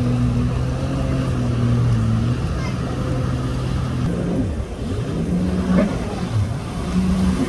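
Jet ski engines on the water: a steady engine drone for the first four seconds, then the revs swing up and down repeatedly as a jet ski throttles through hard turns.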